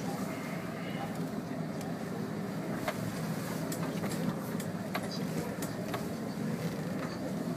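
2012 Land Rover Defender's 2.2-litre diesel engine running at a low, steady crawl, heard from inside the vehicle as it creeps over rough, muddy off-road ground, with scattered knocks and rattles from the bodywork and suspension.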